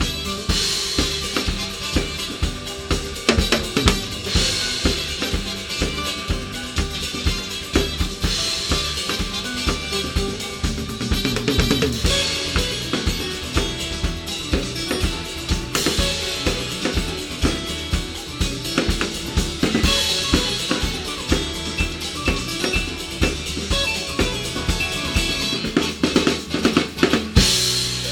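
Acoustic drum kit playing an up-tempo samba groove along to a recorded acoustic-guitar smooth-jazz track: a fast, steady pattern of snare and bass drum hits, with a cymbal accent about every four seconds.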